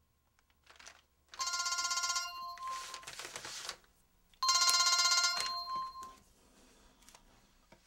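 Telephone ringing twice for an incoming call, each ring about a second long with a pause of about two seconds between.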